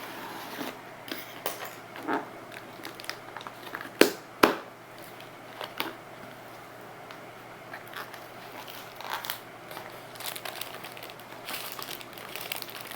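Parcel packaging being opened by hand: crinkling and tearing with scattered small clicks, and two sharp snaps about four seconds in.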